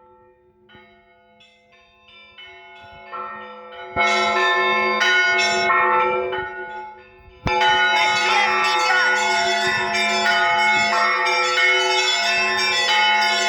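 Russian Orthodox church bells rung by hand: a few separate strikes at first, then about four seconds in several bells sound together in a peal, breaking off briefly near the middle before the full peal starts again and keeps going, with a deep bell's hum beneath.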